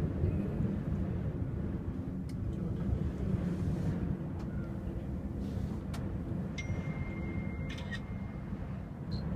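Steady low rumble inside a moving cable car gondola, the cabin and air noise of the ride.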